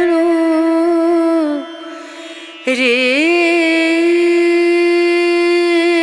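Background music: a single held wind-instrument melody line with sliding pitch bends. It drops away briefly about a second and a half in and comes back with an upward slide.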